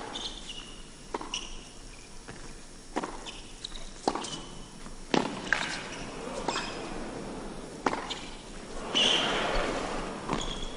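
Tennis rally on an indoor hard court: a racket knocks the ball about every second or two, with shoes squeaking on the court between shots. The crowd's noise swells about nine seconds in.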